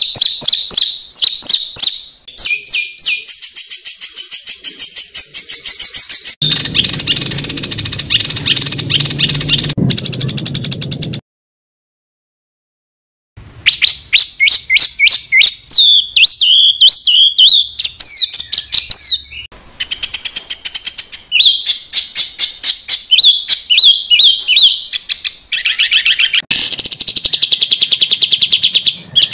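Songbird song made up of fast, dense runs of sharp repeated chirps and trills, the rapid-fire phrases bird keepers call 'tembakan rapat'. It is spliced from several recordings: a low background hum runs under one stretch, and a dead-silent gap of about two seconds near the middle marks a cut to the next recording.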